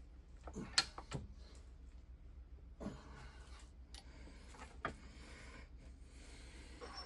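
A handful of short, light metallic clicks and knocks, the sharpest about a second in, from short pieces of steel drill rod being fitted and pressed into vise jaws at an arbor press, over a low steady hum.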